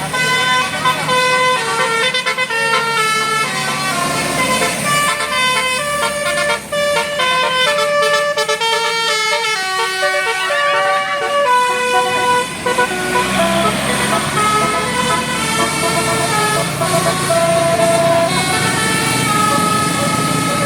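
A bus's 'telolet basuri' musical air horn playing a fast tune of quick stepping notes. About twelve seconds in, a rushing noise joins beneath the notes.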